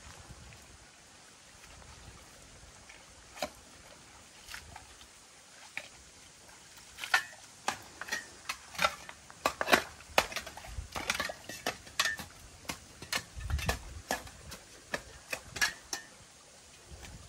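Irregular knocks and clinks of hard objects being handled. A few scattered ones at first, then many in quick succession for several seconds, some with a short ring.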